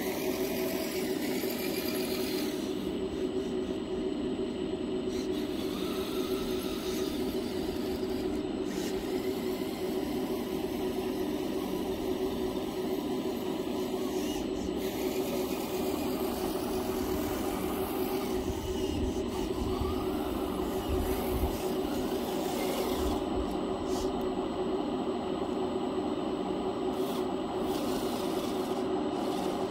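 Small electric motors and gearing of a radio-controlled construction model running, a steady whine with a rasping, scraping edge and some pitch changes as the motor speed varies.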